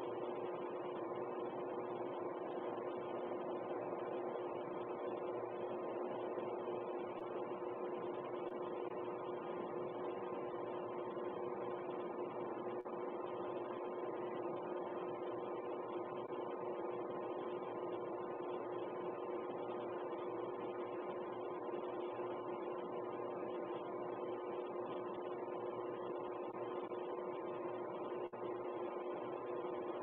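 Steady electrical or mechanical hum made of a few held tones over an even hiss, with no change in pitch or level.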